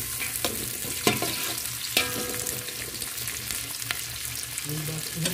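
Chopped onions sizzling in olive oil over low heat in a large metal pot, stirred with a metal slotted spoon that clicks against the pot a few times.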